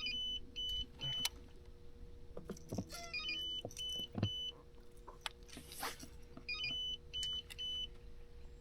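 Electronic beeping: sets of three short high-pitched beeps, each set led by a quick chirp, repeating about every three seconds over a faint steady hum. A brief whoosh comes just before the last set.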